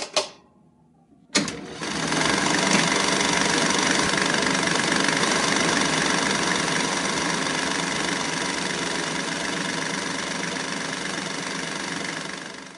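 Sound effect for an animated distributor logo: a sharp hit at the start, then about a second later another sharp hit that sets off a loud, steady mechanical drone, which fades out near the end.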